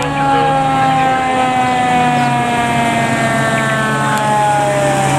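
Fire engine siren on a 2022 E-One pumper, sounding one long wail whose pitch falls slowly, over the truck's engine.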